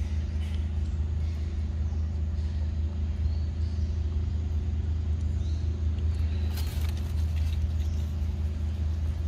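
Steady low engine or motor hum at an even level, with a brief crackle about two-thirds of the way through.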